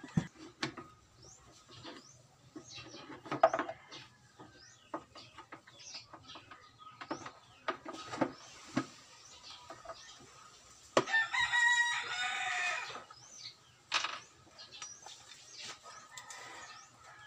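A rooster crows once, a call of about two seconds starting about eleven seconds in. Scattered small clicks and knocks of hands handling screws, wire and a plastic horn tweeter run throughout, with one sharp knock a few seconds in.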